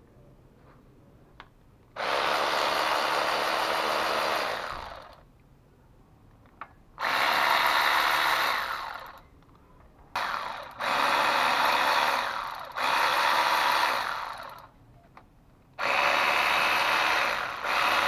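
Cordless electric ratchet running in six bursts of about two seconds each, one of them short, as it undoes the oil pan bolts; each run winds down as the trigger is released.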